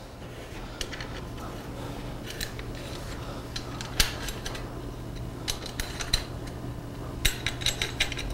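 Allen wrench turning the bolts of a metal roof rack hand-tight, with scattered light metallic clicks and clinks as the key seats and turns. A steady low hum lies underneath.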